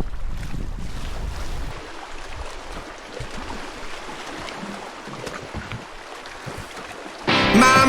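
Wind buffeting the microphone for the first couple of seconds, then water lapping and splashing around a canoe, with small scattered knocks. Music starts suddenly near the end.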